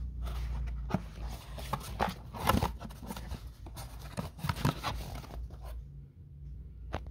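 Cardboard mailer box being opened by hand: the lid and flaps scrape, tear and rustle in an irregular run of crackles and clicks, loudest about two and a half seconds in, with one sharp click near the end.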